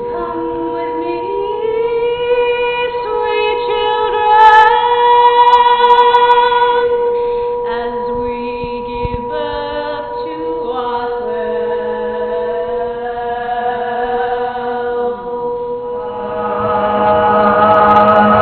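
Several voices singing long held notes that slide from pitch to pitch, chant-like, over a steady sustained drone tone.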